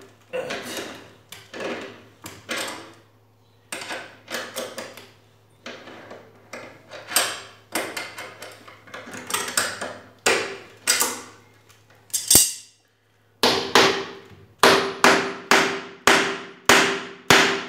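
Pliers turning and tightening a bolt through a wooden chair's corner joint: a run of short sharp clicks, one per stroke, with a short pause past the middle and quicker strokes near the end.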